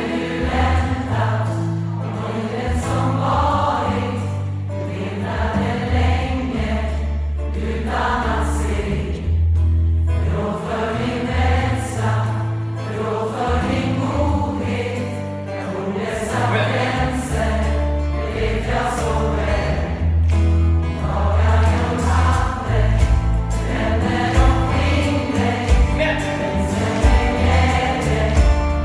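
Large mixed choir singing a Swedish pop song with band accompaniment, a steady bass line underneath.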